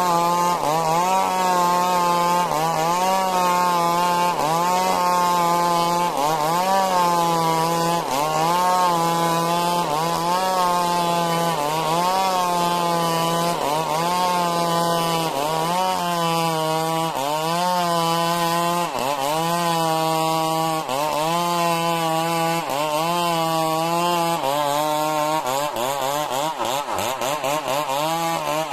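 Stihl MS 382 two-stroke chainsaw at high revs, ripping lengthwise through majau wood. The engine pitch sags under load and climbs back over and over, about once a second.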